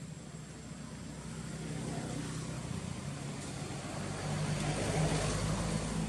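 A motor vehicle's engine humming steadily, growing louder as it approaches. It is loudest about five seconds in, then begins to fade.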